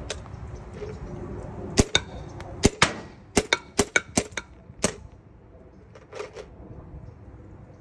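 Paintball gun firing .68 calibre lead balls at a concrete paver: a quick run of about ten sharp pops and clacks between about two and five seconds in, some coming in close pairs like a shot followed by the ball striking the paver, then a couple of fainter clicks.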